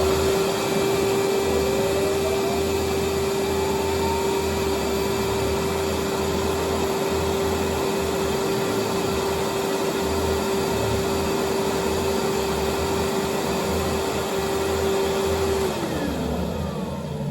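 Dog-grooming blow dryer with hose running at full speed: a steady whining motor tone over a rush of air. It is switched off near the end, and its pitch falls as the motor winds down.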